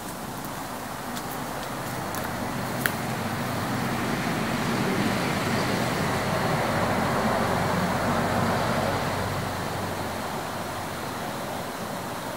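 Distant road traffic heard through a phone microphone: a steady rush that swells over several seconds and then eases off, with a faint click about three seconds in.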